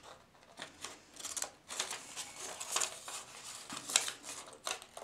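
Small scissors snipping through a sheet of stamped vellum: a run of short, irregularly spaced cuts.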